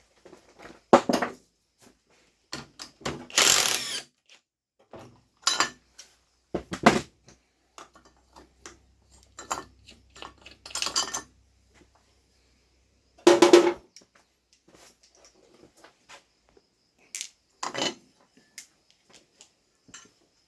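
Irregular metallic clinks and clanks of hand tools and bolts being handled while a bracket is unbolted from a Honda F23/H22 manual transmission case. There are about half a dozen louder knocks among fainter clicks, and one rough scraping stretch lasting under a second.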